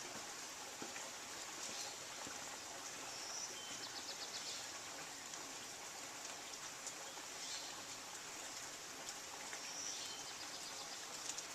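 Faint, scattered high bird chirps and a brief rapid trill about four seconds in, over a steady hiss of outdoor background noise.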